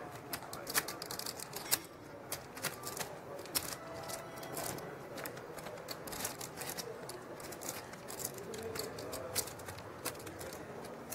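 Poker chips clicking as a player handles a stack at the table: sharp, irregular clicks a few times a second over a low room murmur.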